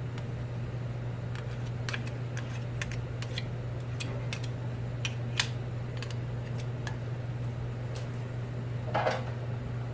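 Spoon scraping and clicking against a container while digging out solid shortening: a scatter of light clicks, with a longer scrape about nine seconds in. A steady low hum runs underneath.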